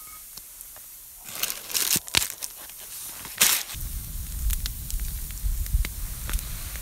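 Baking parchment paper crinkling in a few short rustles as it is folded around bread dough in a cast-iron Dutch oven. A little under four seconds in, this gives way to an open campfire crackling with sharp pops over a low steady rumble.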